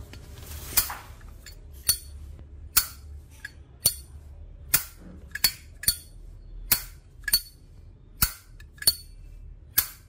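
Solid brass Zippo 1941 Replica lighter lid being flicked open and snapped shut over and over, giving about a dozen sharp metallic clicks roughly one a second: the characteristic Zippo open-and-close sound.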